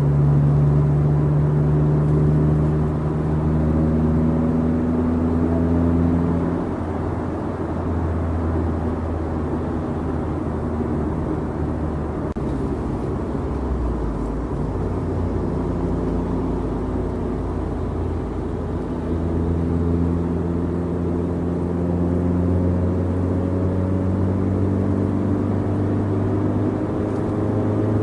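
Mazda 3 exhaust with a Spintech Super ProStreet 9000 muffler, heard from inside the cabin while cruising at freeway speed: a steady low exhaust drone over tyre and road noise. The drone fades for a stretch in the middle and then comes back, its pitch easing slightly up and down.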